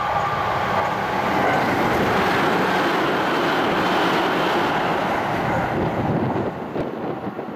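Tsukuba Express electric train passing through a station at speed without stopping: a loud, steady rush of wheel, rail and air noise that begins to fade about six seconds in as the last car clears.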